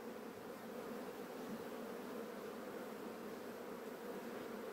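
Honeybees of a second-generation Buckfast colony buzzing from the open hive: a low, steady hum.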